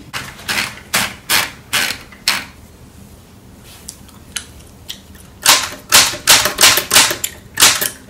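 Keys of a Sears manual typewriter striking the paper, one sharp clack per letter: a handful of strokes, a pause of about three seconds, then a faster run of strokes.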